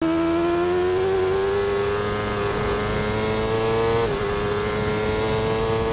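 BMW superbike's inline-four engine pulling hard at high speed on track, its pitch climbing slowly, with a brief dip about four seconds in, over the rush of wind.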